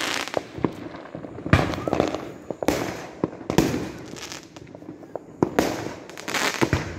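Aerial fireworks bursting overhead: about five loud bangs a second or so apart, each followed by crackling, with smaller pops between.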